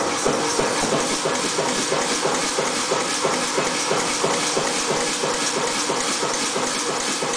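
Massey 3cwt pneumatic power forging hammer running, with an even, quick rhythm of strokes and a steady hiss of air.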